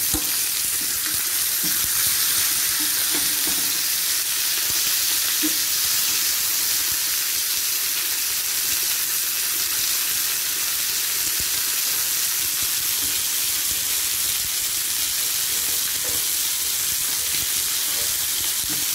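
Poussin pieces and herb-marinated shrimp skewers frying in oil in two pans on a gas hob, a steady sizzle throughout.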